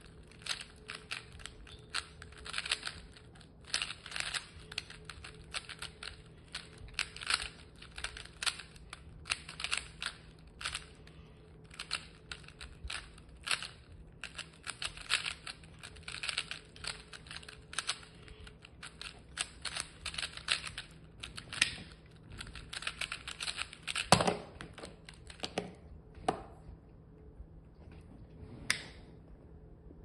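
GAN 12 ui smart 3x3 speedcube being turned fast by hand: a continuous rapid clatter of plastic layer-turn clicks during a speedsolve. The turning stops about 25 seconds in, followed by a few separate clicks.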